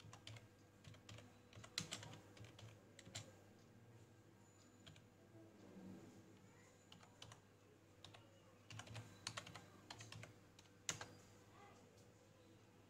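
Faint typing on a computer keyboard: scattered keystrokes in short runs with pauses between them.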